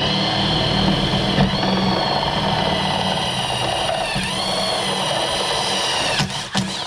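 Electric drill running steadily under load, drilling a hole into the vehicle's body panel. Its whine dips briefly twice as the bit bites, and it stops shortly before the end.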